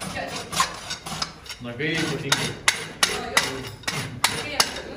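Farrier's rasp filing a horse's hoof, in quick rasping strokes about two to three a second.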